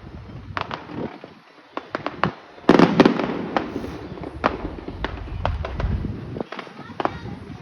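Fireworks going off: irregular sharp cracks and pops, with a loud, dense crackling burst about three seconds in.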